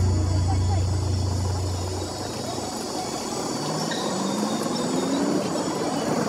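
A low music drone fades out about two seconds in, giving way to street noise with a passing vehicle's engine that rises slowly in pitch.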